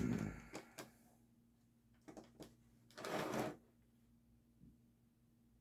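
Small clicks and taps of objects being handled and sorted, with a brief rustle about three seconds in, as someone rummages for bearings or ammunition.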